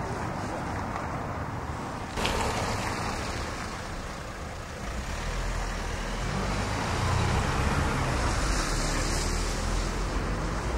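Road traffic: a passing vehicle's low engine and tyre rumble builds over the second half and is loudest near the end, over a steady street-noise hiss. There is a sharp knock about two seconds in.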